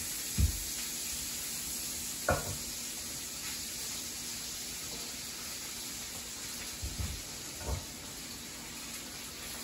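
Bacon sizzling steadily in a cast iron skillet, with four knocks of a knife cutting an onion on a wooden cutting board.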